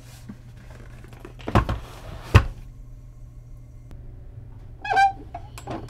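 Typewriter carrying case set down and handled on a work-table cutting mat: two heavy thumps about a second and a half and two and a half seconds in, then a short metallic ringing clink from the case's metal handle and its brackets about five seconds in.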